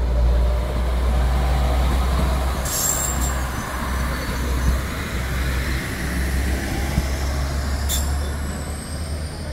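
Alstom Coradia LINT diesel railcar passing close by with a loud, steady low diesel rumble. Two short hisses come through, one about three seconds in and one near the end.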